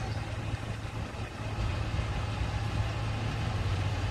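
Car engine idling with a steady low hum, from a vehicle waiting at a closed level crossing.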